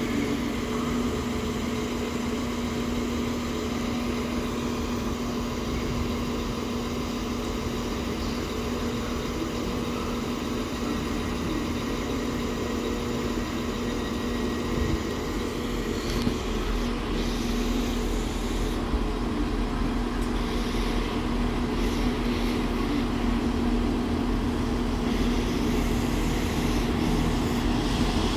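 Train engine idling: a steady hum that gets a little louder about halfway through.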